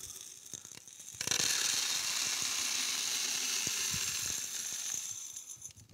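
Small dry grains poured steadily out of a large jar into another container: a continuous rattling hiss that starts about a second in, lasts about four seconds and tails off near the end, after a few scattered clicks.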